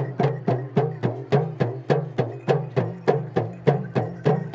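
Hudka hourglass hand drums played in a fast, even rhythm of about four or five strokes a second, each stroke's pitch bending, over a steady low tone.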